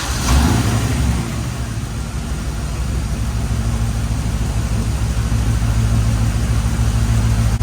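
1989 Corvette C4's 5.7-litre V8 catching just after the start, surging briefly, then settling into a steady idle, with its ignition timing freshly reset after a loose distributor was tightened.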